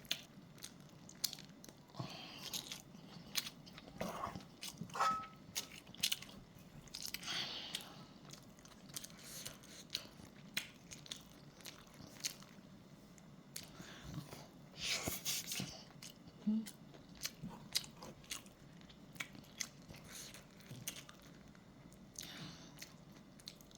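A person chewing and eating kimchi fried rice, with frequent short wet mouth clicks and a few longer hissy stretches.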